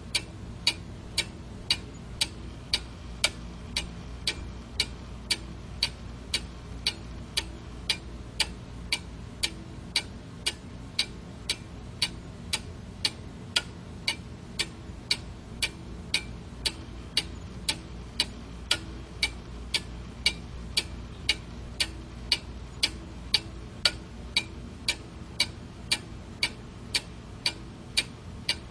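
Clock ticking steadily, about two ticks a second, some ticks louder than others, over a faint low background hum.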